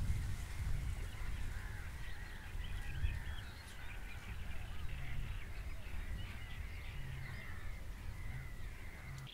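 Several wild birds singing and calling in the background, over a steady low rumble.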